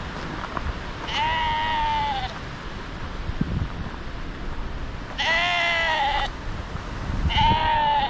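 Sheep bleating three times, each call a little over a second long and wavering slightly in pitch, over a steady background rush.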